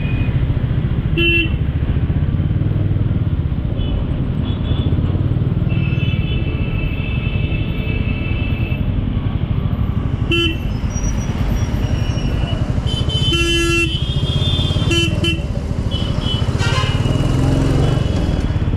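Steady rumble of road traffic with five short vehicle horn honks: one about a second in and four in the second half.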